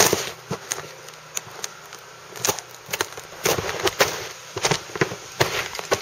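Footsteps crunching through ice-crusted snow: a series of sharp crunches about one every half second to a second, each breaking the frozen crust.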